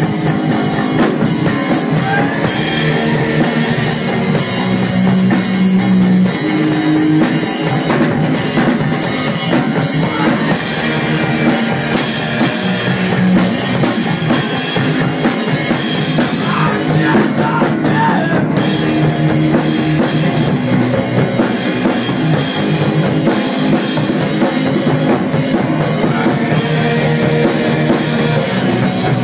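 Stoner rock band playing a song on electric guitar, bass guitar and drum kit. The cymbals drop out for about a second a little past the middle.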